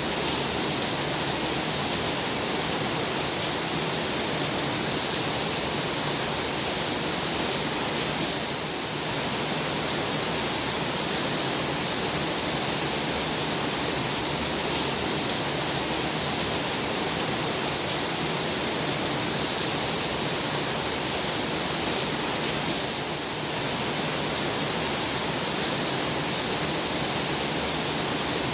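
Heavy rain falling steadily, a dense even hiss that eases slightly twice for a moment.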